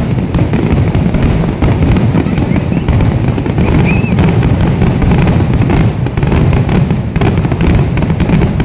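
Fireworks finale barrage: a rapid, unbroken string of shell bursts and crackles over a continuous low booming rumble, loud throughout.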